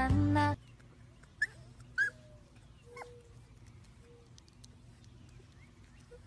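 Music cuts off abruptly about half a second in. Then a Siberian husky puppy whimpers: two short high squeaks about a second apart, and a lower whimper falling in pitch a second later.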